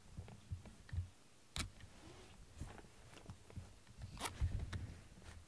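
Irregular handling noises: soft thumps and scattered clicks, with two short sharp rustling strokes about a second and a half in and again about four seconds in.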